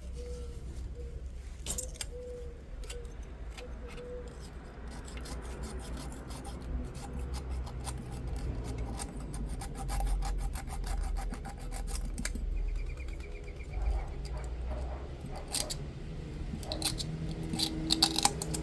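Hand-tool work on metal engine parts: scraping and rubbing, with a long run of quick, sharp clicks in the middle and a few louder clicks and knocks near the end.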